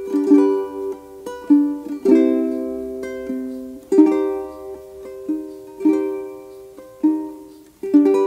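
Instrumental background music on a plucked string instrument, picked notes and chords that ring out and fade one after another.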